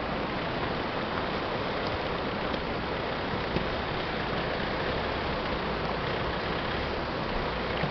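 Steady rushing of a river, with a 4x4's engine running low underneath as it crawls over loose rock.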